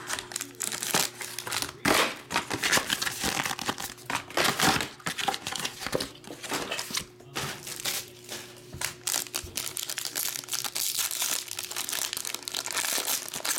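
Foil trading card pack crinkling and crackling as it is handled and torn open, in irregular rustles.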